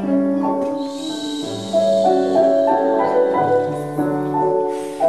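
Instrumental piano music, a melody of held notes changing about every half second, with a brief high hiss about a second in.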